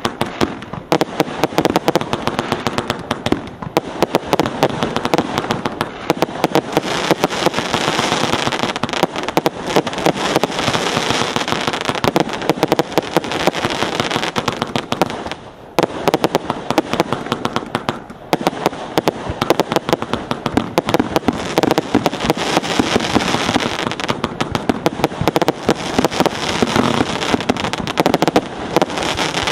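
Hallmark Gladiator 100-shot firework cake firing: a rapid, unbroken stream of shots and aerial bursts, with two short lulls a little past the halfway point.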